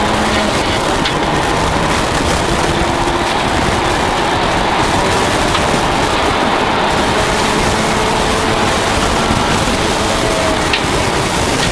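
1989 Toyota Celica GT4's turbocharged four-cylinder engine running hard at speed, heard from inside the cabin under loud, steady road and wind noise, with a few sharp ticks.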